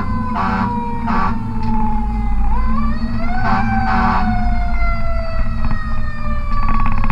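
Fire truck siren heard from inside the cab. It slowly winds down, rises again about three seconds in, then winds down slowly once more. Four short horn blasts cut in over the first half. Underneath, the truck's Caterpillar C12 diesel engine runs steadily.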